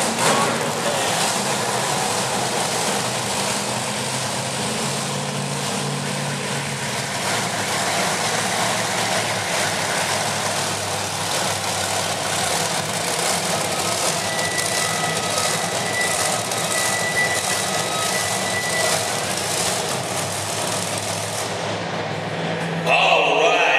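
Monster truck engine running steadily at low revs as the truck drives slowly across a concrete arena floor and parks.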